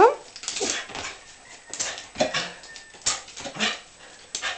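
Dog whining and giving short excited yips while jumping up again and again at a squeaky toy it cannot reach; a rising whine at the start, then short sharp sounds every half second to a second.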